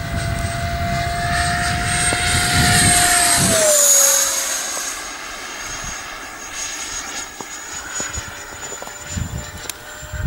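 Electric ducted-fan RC model jet (Freewing MiG-21) flying past with a high steady whine that grows louder, drops in pitch as it passes about four seconds in, then carries on quieter. Wind buffets the microphone at the start and end.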